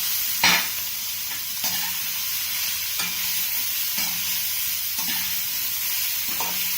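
Chopped vegetables frying in hot oil in a pan, a steady sizzle, while a spatula stirs them with a scrape about once a second.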